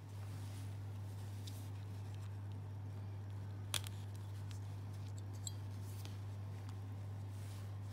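Small sharp click about four seconds in and a faint tick a second and a half later, from a blade prying the CR2032 coin battery in a key fob's plastic case, over a steady low hum.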